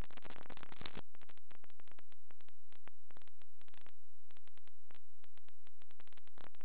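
Wind buffeting the microphone, heard as choppy, rapidly chopping bursts of noise, densest in the first second.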